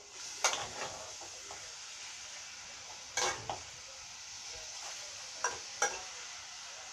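Minced meat sizzling in a frying pan for a ragù, with a steady hiss throughout. A utensil stirring it knocks against the pan four times: once early, once about three seconds in, and twice between five and six seconds.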